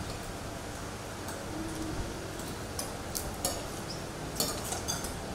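Metal spoons and forks clinking lightly against plates and bowls as several people eat, a few scattered clinks that come more often in the second half.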